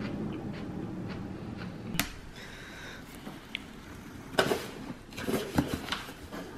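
A low steady hum that stops about two seconds in, then a yellow utility knife slicing through packing tape on a cardboard shipping box and the cardboard flaps being pulled open: sharp scrapes and rustles, loudest about four and a half and five and a half seconds in.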